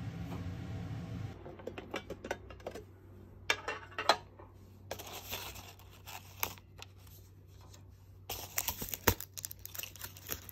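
Paper crinkling and rustling as the printed card and pleated paper liner of a cookie tin are handled, in irregular clusters of short crackles. There is a single sharp knock near the end. A low steady hum at the start cuts off about a second in.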